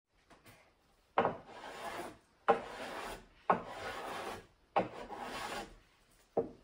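Wooden hand plane cutting shavings along the edge of a solid-wood board: four strokes, each starting with a sharp bite and then about a second of hissing as the blade shears the wood. A short knock comes near the end.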